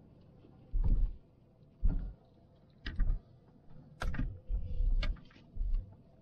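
Hyundai i20 hatchback jolting along a rough dirt track, heard from inside the cabin: irregular thuds and rattles from the suspension and body about once a second, several close together near the middle.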